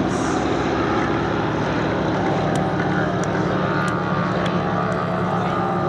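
Boeing Stearman biplane's radial engine and propeller running steadily, with a few faint clicks in the middle.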